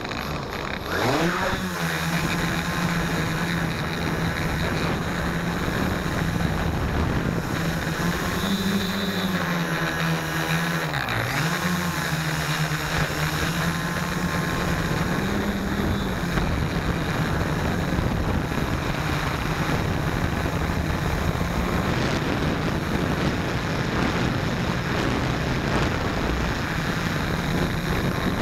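Hexacopter's electric motors and propellers spinning up for takeoff about a second in, then a steady buzzing hum while flying, with the pitch dipping and rising as the throttle changes midway. Heard from the camera mounted on the airframe, with rushing air noise under the hum.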